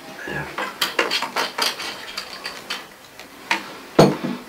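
Glasses clinking as drinks are handled: a run of light, sharp clinks, then a louder knock about four seconds in.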